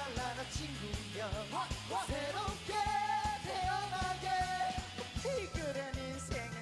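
Background pop song with a singing voice over a steady beat.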